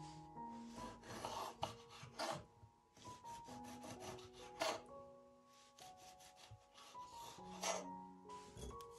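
Kitchen knife slicing and dicing a tomato on a wooden cutting board: irregular crisp cuts and taps of the blade against the wood, with soft background music.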